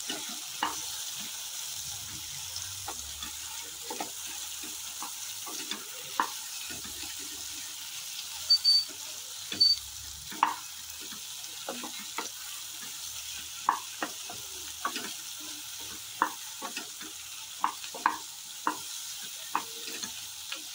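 Egg-coated cauliflower florets frying in hot oil in a kadai, a steady sizzle, while a wooden spatula stirs them, with irregular knocks and scrapes of the spatula against the pan. The sharpest knocks come in a cluster around the middle.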